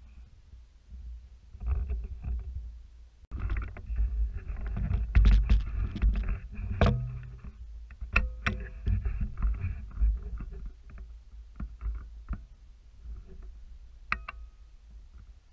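Muffled rubbing and bumping handling noise from a GoPro mounted on a bow as the bow is moved, with a few sharp clicks and knocks in the middle and one near the end.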